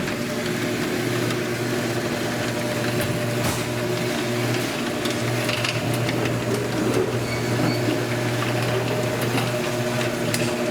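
Garage door opener motor running steadily as the door closes, with a constant hum and drive rattle. It runs only while the wall button is held in.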